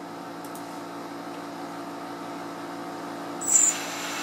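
Steady low hum, then about three and a half seconds in the FPV quadcopter's small brushless motors, soft-mounted on foam, start spinning at low throttle (a 1100 motor signal) with a brief loud high-pitched burst, settling into a steady whine.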